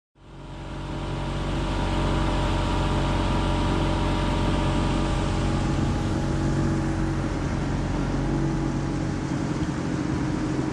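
Small outboard motor running steadily, fading in at the start, with a steady hiss over its hum.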